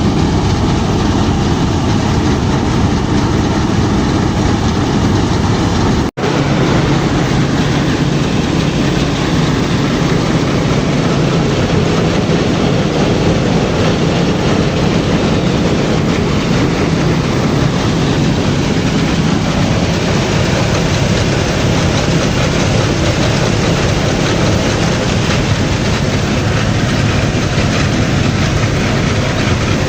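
Wheat threshing machine running steadily and loudly, a dense clattering rumble with a low hum underneath; the sound drops out for an instant about six seconds in.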